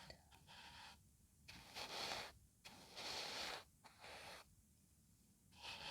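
Close-miked breathing in a pause between whispered phrases: a few soft breaths, the two clearest starting about one and a half and three seconds in, each lasting under a second, over a faint low hum.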